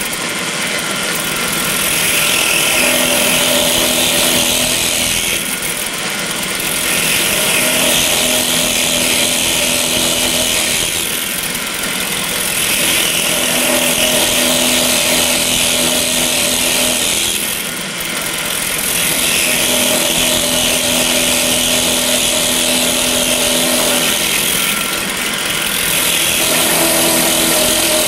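Drill press running with a Lasco diamond core drill cutting a hole in a submerged glass wine bottle. The cut goes in repeated intervals: the sound changes about every six seconds as the bit is pressed onto the glass and lifted off to let water clear the hole.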